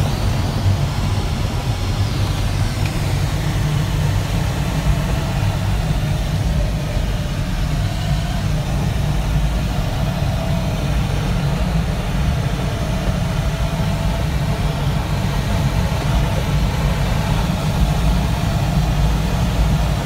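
Steady rush of airflow around an ASK 21 glider's canopy during a fast descent on approach, loud and deep, with no engine.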